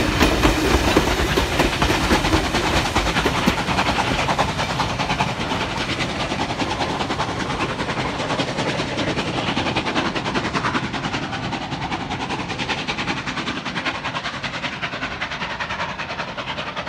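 Steam-hauled heritage passenger carriages rumbling and clattering past on the rails, the sound fading steadily as the train draws away.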